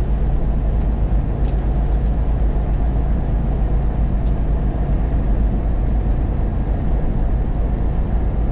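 Truck cab interior while driving: a steady low engine rumble and road noise.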